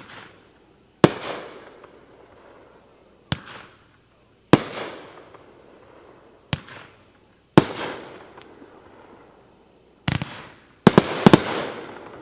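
A 16-shot consumer fireworks cake, Magnus Fireworks' "Stoned to the Bone", firing: sharp reports of shells launching and bursting, each followed by a fading echo, coming every one to two seconds, with a quick cluster of several near the end.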